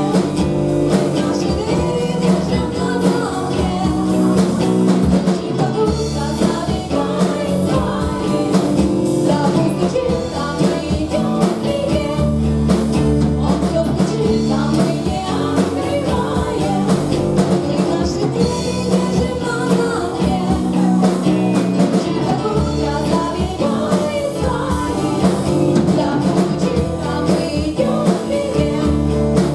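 A live rock band playing a song, with singing over guitar and a steady beat.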